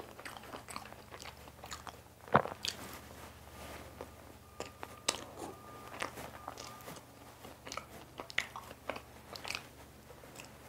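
Close-miked chewing and mouth sounds of eating soft, cream-filled pandoro dipped in powdered sugar, with many small scattered clicks and one sharper click a little over two seconds in.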